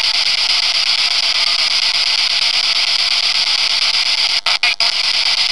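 Spirit box radio sweep static heard over a phone line: a steady, loud hiss, broken by three brief dropouts near the end.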